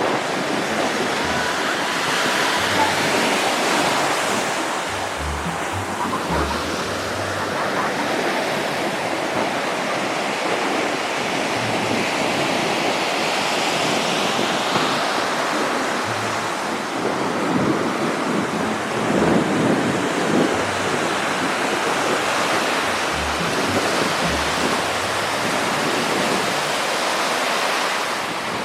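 Sea surf washing onto the shore as a steady rush that swells and eases, with wind rumbling on the microphone at times.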